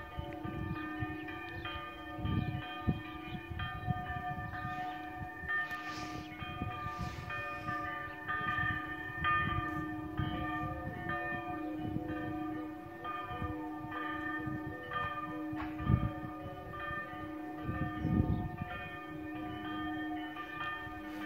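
Three church bells ringing together in a full peal: a 260 kg bell cast by the Dytrych family in 1983, a middle bell, and a roughly 95 kg bell cast by Baltazar Herold in 1672. Their strokes overlap in a continuous clangour of several ringing pitches, with occasional low rumbles underneath.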